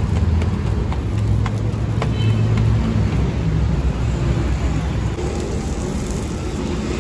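Steady low rumble of outdoor street noise with a faint crackle and scattered clicks of parathas frying in butter on a large iron griddle.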